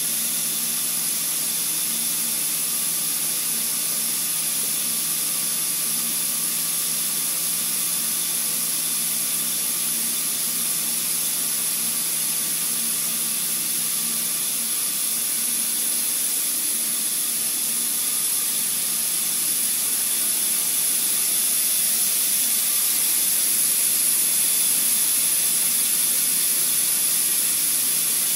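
Steady hiss of compressed air from the pneumatic vacuum system holding the suction-cup grippers, with a constant high whine over a faint low hum, growing slightly louder in the second half.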